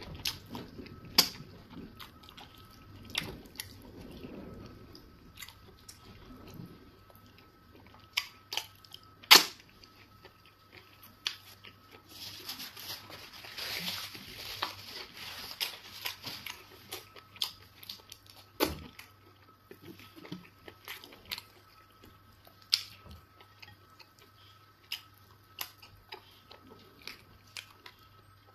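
Close-miked eating of eba with egusi soup by hand: chewing and wet mouth and lip smacks, heard as many sharp clicks. A rustling stretch about halfway through comes as a paper tissue is pressed to the face.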